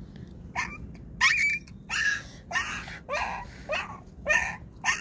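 Ten-day-old puppy crying out in pain, a string of about eight sharp, high yelps roughly two a second, each rising quickly in pitch, as maggots are picked out of a wound on its leg with tweezers.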